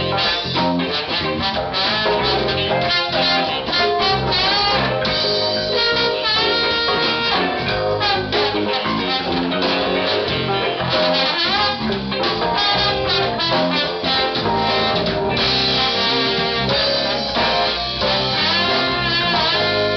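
A live funk band playing jazzy instrumental music, with electric guitar, drum kit and horns.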